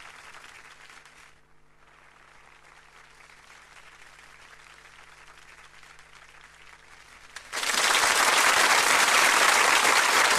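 A faint noisy background with a steady low hum, then about seven and a half seconds in an audience suddenly bursts into loud applause that carries on to the end.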